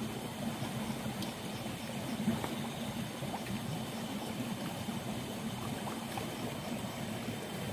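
Shallow water running steadily in a small stream, with one brief knock a little over two seconds in.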